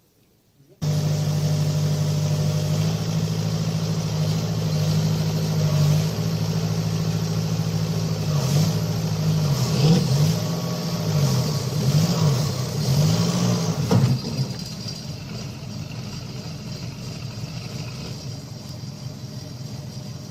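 Engine of a heavy construction machine running hard, with the revs swinging up and down several times in the middle. About fourteen seconds in it drops to a quieter, steady engine sound.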